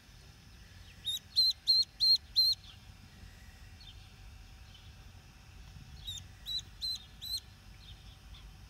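Young duckling peeping: a run of five loud, high-pitched peeps about a second in, then about four more a few seconds later.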